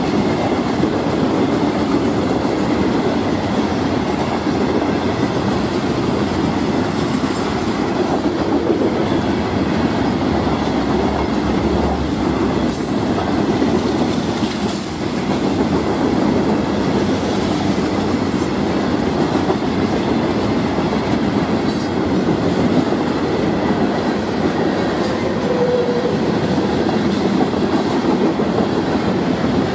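Florida East Coast freight train's cars rolling past: a steady noise of steel wheels running on the rails.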